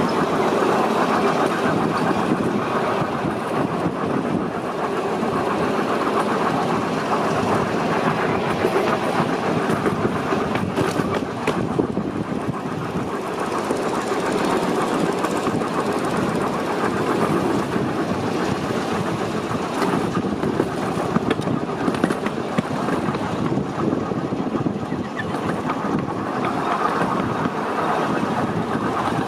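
A ride-on miniature railway train running along narrow-gauge track, a steady motor and running noise with occasional faint clicks from the wheels on the rails.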